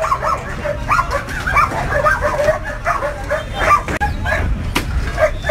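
A dog yipping and yelping in short, rapid calls, several a second, with a few sharp knocks over a steady street rumble.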